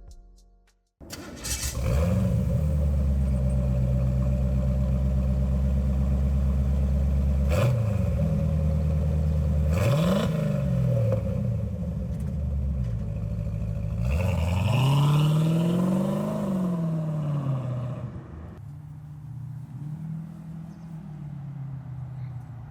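V8 with a Black Widow Neighborhater muffler starting up about a second in, idling steadily, then revved: two quick blips, a longer rev, and back to a quieter idle near the end.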